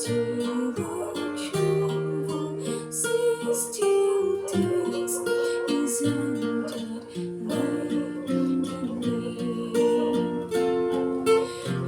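Acoustic guitar being played: a run of plucked and strummed notes, with held notes ringing under them.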